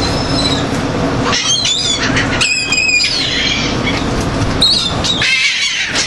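Seagulls calling in short, high squealing cries, clustered about two and a half to three seconds in, with a single rising cry about a second before the end, over a steady rushing noise.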